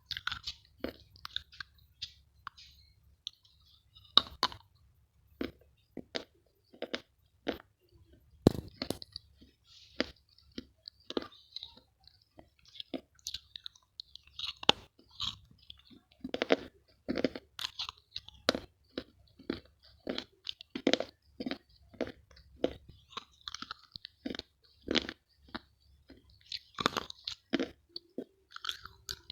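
Close-up chewing of a crunchy chocolate snack, with many irregular sharp crunches as it is bitten and chewed.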